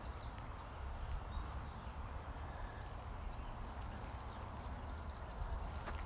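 Outdoor ambience: a small bird gives a quick run of high, falling chirps in the first second and one more near two seconds, over a steady low rumble.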